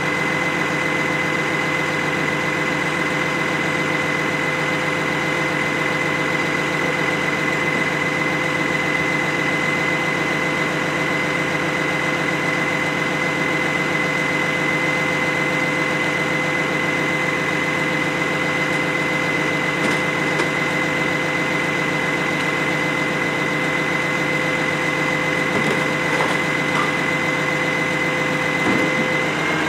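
Freightliner garbage truck's diesel engine idling steadily, with a constant high whine over the low engine hum.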